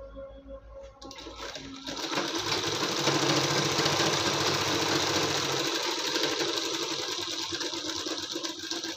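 Sewing machine stitching a seam at a fast, steady pace. It starts about a second in, builds up over the next two seconds, and stops right at the end.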